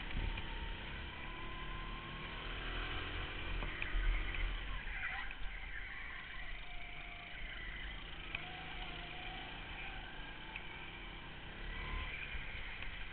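Go-kart engine running under the driver, its pitch falling about four seconds in and rising again as the kart slows for a corner and accelerates out.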